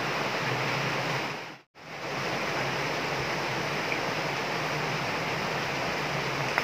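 Shallow water rushing in a steady stream across a concrete spillway floor, dipping briefly to silence about a second and a half in.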